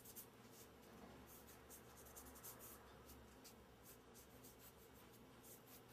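Faint, repeated light swishing strokes of a dusting brush working petal dust onto a gum paste flower, over a low room hum.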